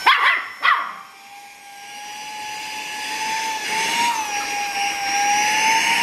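A dog barks sharply twice in the first second over the steady high whine of a Saker 3-in-1 handheld mini vacuum cleaner running. The vacuum's whine grows louder over the following seconds.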